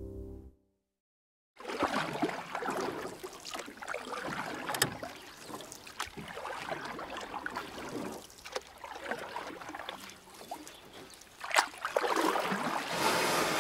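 Water and wind noise from a boat on the water: an uneven rushing hiss that swells and dips, starting about a second and a half in.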